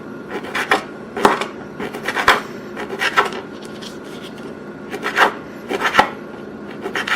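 Knife slicing through a pepperoni stick on a cutting board: short, irregular cutting strokes, often two or three in quick succession.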